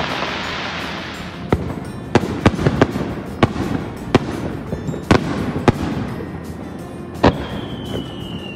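Fireworks display: a crackling burst dies away over the first second or so, then a string of sharp bangs from exploding shells, about eight over several seconds. Near the end comes a long whistle that falls slightly in pitch.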